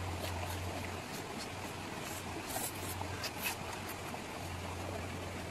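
Steady rush of a flowing stream, with a few small clicks about halfway through.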